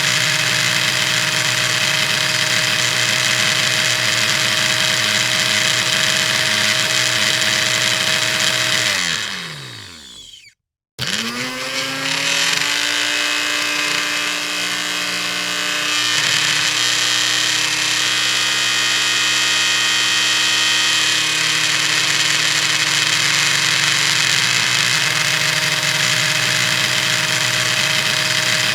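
Electric kitchen blender motor running at a steady pitch; about nine seconds in it is switched off and its whine falls away as it winds down, then about two seconds later it is switched back on and its pitch climbs as it spins up to speed again.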